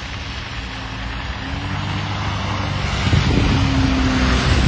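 A car running through snow, heard from inside: rushing engine and tyre noise with a low rumble, growing steadily louder as the car ploughs off the road into deep snow, with a steady engine hum coming up over the last couple of seconds.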